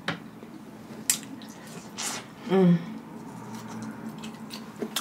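Close-up mouth and hand sounds of eating boiled crawfish: sharp clicks of shell being cracked and peeled, a wet slurp about two seconds in, and a brief hummed "mm" just after it.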